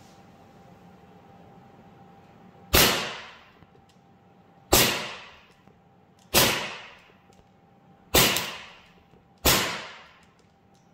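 Army Armament R601 Combat Master gas-blowback airsoft pistol firing five single shots at 0.25 g BBs, the first about three seconds in and the rest one to two seconds apart. Each is a sharp crack that dies away over about half a second. After the fifth shot the magazine is empty and the slide locks back.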